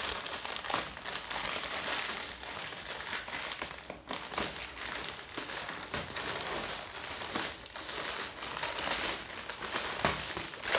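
Grey plastic courier mailer bag crinkling as it is cut with scissors and pulled open by hand: a continuous rustle full of small snaps, with one louder snap just before the end.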